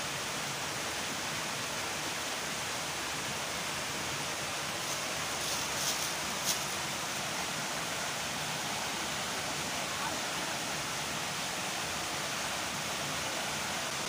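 Steady rushing noise, even and unbroken, with a few faint clicks about halfway through.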